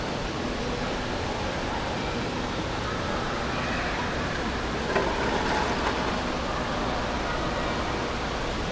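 Steady rushing-water noise of an indoor water park, with faint distant voices in it and a single knock about five seconds in.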